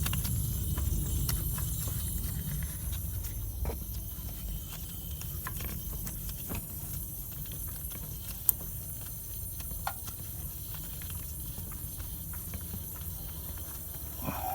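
Honda Civic 1.8L four-cylinder engine running with a steady low hum and scattered irregular clicks and ticks, one sharper click about halfway through. The noise is shown as the sign of a bad AC compressor.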